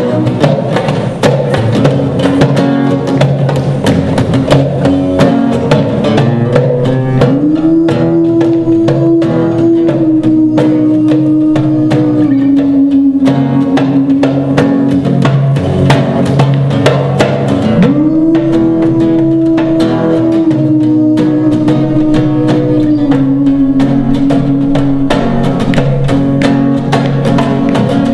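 Live acoustic band music: a woman's voice singing long held notes that slide up into each phrase, over strummed acoustic guitar and hand percussion.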